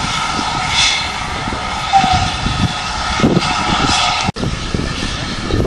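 GWR steam locomotive passing, with a steady roaring hiss of escaping steam. Heavy wind buffeting on the microphone rumbles underneath.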